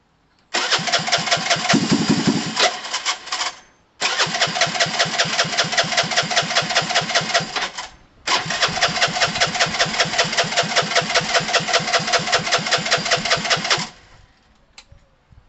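Gilera DNA 125's electric starter cranking the engine in three long attempts, a steady beat of about five turns a second, each cut off abruptly, the engine not catching.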